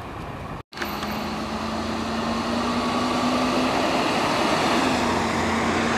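A brief cut to silence, then a motor vehicle's steady road noise with a low engine hum, slowly getting louder.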